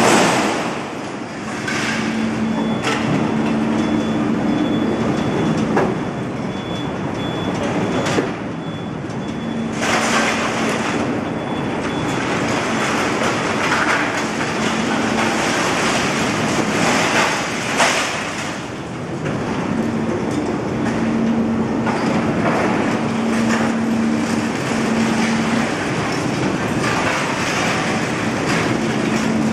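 Overhead electromagnet crane working in a scrap yard: a steady metallic rumble of the crane running, with a low motor hum that starts and stops several times. Scrap steel clanks as it is handled, with a few sharp knocks.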